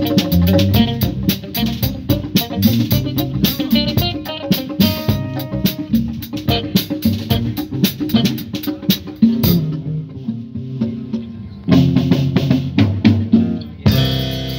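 Live band playing an afrobeat groove: electric bass guitar under congas and drum kit. The percussion thins out for about two seconds past the middle, then the full band comes back in.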